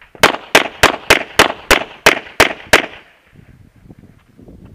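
Handgun fired in a quick string of nine shots, about three a second, each a sharp report, stopping just under three seconds in.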